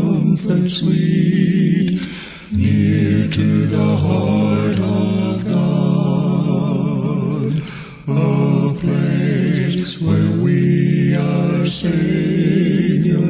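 Gospel quartet singing a cappella in close harmony, voices wavering with vibrato on held notes, in phrases with brief breaths between them.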